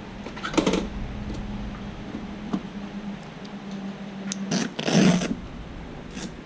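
Maxmiles pannier bag being unzipped and opened: short rustles, scrapes and knocks of handling, the loudest about five seconds in. A steady low hum runs underneath.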